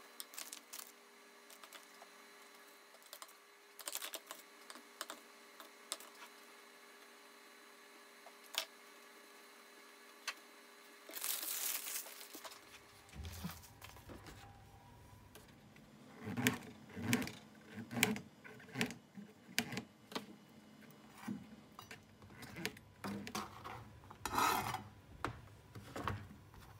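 Faint rustles and light ticks of spring roll wrappers being handled. Then a knife cutting king oyster mushrooms over a plastic tray: a run of short cutting strokes, about two a second, starting about two-thirds of the way through.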